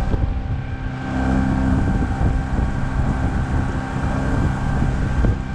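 Small boat's outboard motor running steadily at cruising speed.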